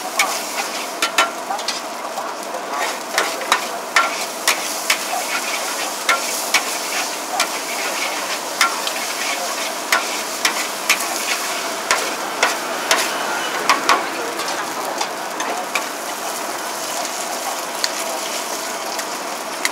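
Char kuey teow noodles sizzling in a large wok, with a metal spatula clanking and scraping against the wok as they are stir-fried. The clanks come irregularly, about one or two a second, and thin out in the last few seconds.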